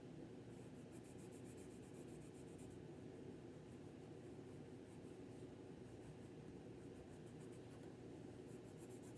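Faint pencil shading on paper: quick back-and-forth scribbling strokes in two spells, one about half a second in and one near the end.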